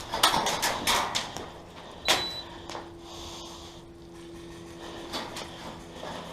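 Sharp clacks and knocks: a quick run of them in the first second and one louder one about two seconds in, then a quieter stretch with a few faint clicks.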